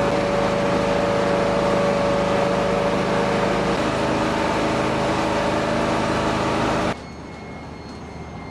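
An engine running steadily, its pitch shifting slightly about four seconds in; a few seconds later it cuts off suddenly to a much quieter hum with faint steady tones.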